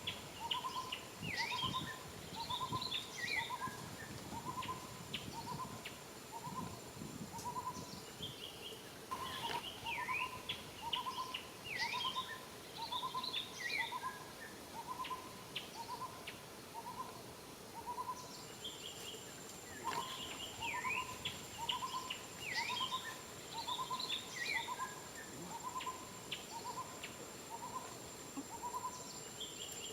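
Bird calls: a run of short, evenly spaced hooting notes, about one and a half a second, with higher chirps and down-slurred whistles over them. The same sequence repeats about every ten seconds, like a looped nature track, over a faint steady high-pitched hum.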